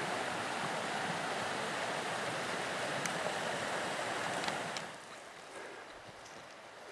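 Flowing stream rushing steadily, dropping away sharply about five seconds in, with a few faint clicks over it.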